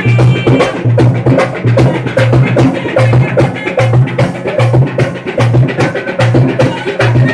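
Coorg (Kodava) folk drum ensemble: several double-headed drums beaten with sticks in a fast, steady dance rhythm. A deep drum beat recurs roughly once a second under rapid, sharp stick strokes.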